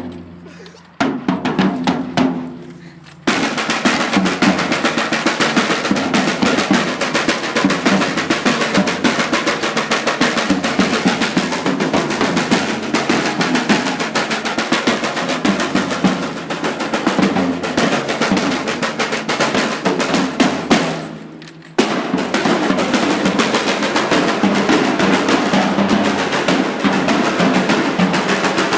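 A percussion group drumming together, fast and dense, with snare-drum rolls. A few single hits ring out first; the full drumming starts about three seconds in, breaks off briefly about twenty-one seconds in, then starts again.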